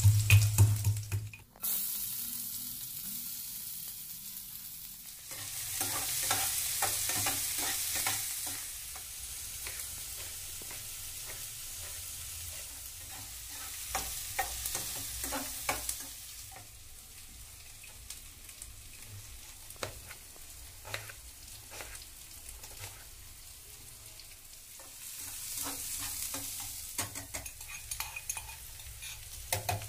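A steel pestle pounding garlic in a steel mortar for about the first second and a half, then chopped vegetables sizzling in oil in a kadai, with a spatula stirring and scraping against the pan. The sizzle swells louder a few times.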